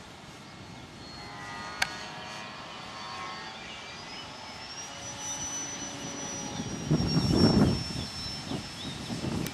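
Electric motor and propeller of a Multiplex FunCub RC plane flying overhead, heard as a high, steady whine that sags slightly in pitch. There is a sharp click about two seconds in. Wind buffets the microphone in a loud rumble for about a second near the end.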